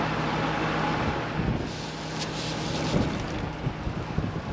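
An engine runs steadily, with wind blowing across the microphone.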